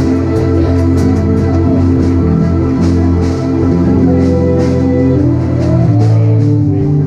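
Church band music: long sustained keyboard chords that change about six seconds in, with light cymbal taps above them.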